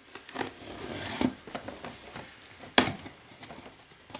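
Cardboard box being cut open: a utility knife slitting the packing tape, and cardboard flaps scraping and rustling as they are pulled apart. There are scattered clicks and one sharp knock just under three seconds in, the loudest sound.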